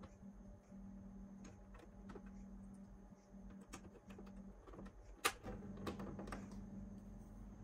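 Small clicks from fingers working the sliders and switches on the top panel of a 1990 Polytron boombox, with one sharp switch click about five seconds in. Under them a low steady hum from the unit drops out just before that click and comes back louder after it.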